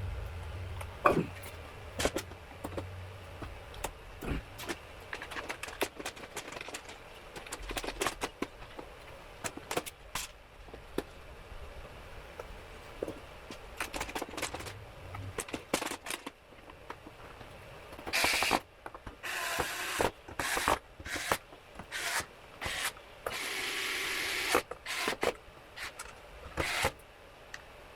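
Scattered clicks, taps and scrapes of hands and tools handling a PlayStation 5 console, with a few longer rubbing scrapes in the second half.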